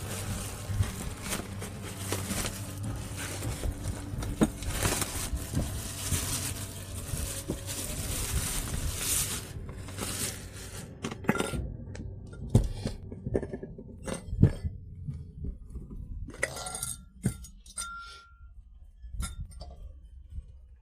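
An electric food chopper runs steadily for about ten seconds and then stops. Sharp clinks and knocks of glass and plastic parts follow, like the bowl and lid being handled.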